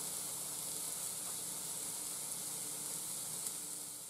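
Meat sizzling on the cast-iron grate of a charcoal-fired Lodge portable grill, a steady hiss that fades out near the end.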